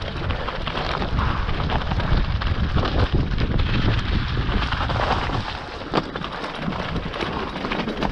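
Mountain bike descending fast over loose rock and scree: tyres crunching on stones and the bike rattling over continual small impacts, with wind buffeting the microphone.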